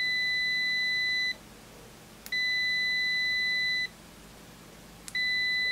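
Kaiweets ST600Y multimeter's continuity buzzer giving a steady, high, pure beep each time the probe tips touch, with a faint click of the tips just before each beep. One beep ends about a second in, a second lasts about a second and a half in the middle, and a third starts near the end.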